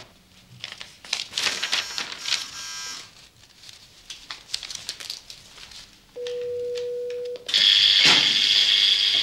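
Paper rustling as pages are leafed through, then an office intercom buzzer: a steady tone for about a second, followed by a louder, harsher buzz lasting about two seconds.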